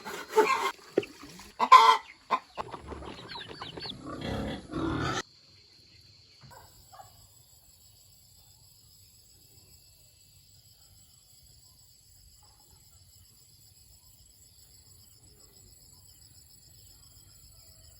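Farm animals calling, chickens clucking among them, for about five seconds; then the sound cuts off abruptly, leaving only a faint, steady, high insect chirring.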